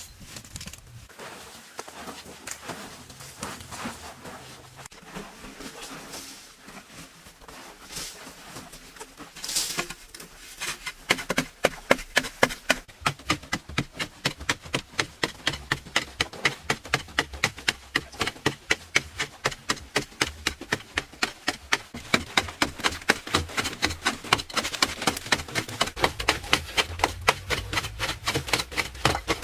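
Close-up eating sounds: crisp crunching and chewing, irregular at first, then settling about a third of the way in into a fast, even rhythm of sharp crunches, several a second.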